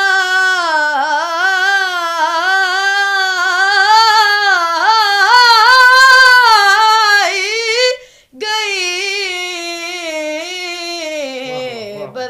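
A boy's high voice singing an unaccompanied Urdu naat, drawing out long, ornamented notes that waver up and down, with a short break for breath about eight seconds in.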